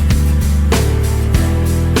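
Background music: an instrumental track with guitar over held bass notes and a steady beat, changing chord about halfway through.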